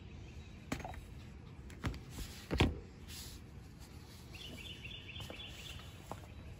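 A steel Estwing hatchet set down on a paper-covered wooden workbench: a few knocks, the loudest about two and a half seconds in. About four and a half seconds in a bird sings a quick run of high repeated chirps for about a second.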